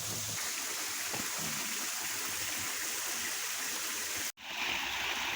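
Stream water running steadily, an even rushing with no distinct splashes. It breaks off for an instant about four seconds in, then carries on.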